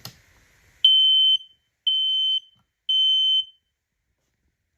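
Smoke alarm sounding on test: three loud, high-pitched beeps of about half a second each, evenly spaced, then a pause. This is the three-beep evacuation pattern. A light knock comes just before the beeps.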